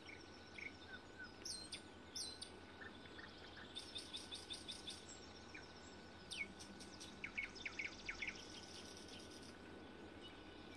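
Small songbirds calling faintly over light outdoor background noise: scattered short high chirps, a rapid trill about four seconds in, and a quick run of chirps a little later.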